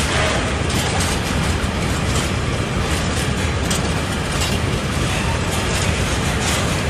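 Freight train of covered hopper wagons rolling past close by: a steady rumble and rattle of steel wheels on the rails, with faint clicks here and there.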